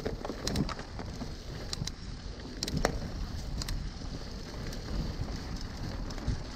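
Mountain bike rolling over a snow-dusted dirt track: a steady low rumble of tyres and wind on the microphone, with scattered sharp clicks and rattles from the bike.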